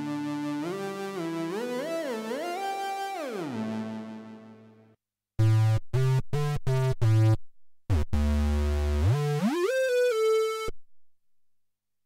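Cherry Audio DCO-106 software synthesizer, an emulation of the Roland Juno-106, playing lead presets. First a solo lead line slides between notes with portamento and fades out. Then a square-wave lead plays about five short staccato notes, a low held note and an upward glide into a held note that stops abruptly.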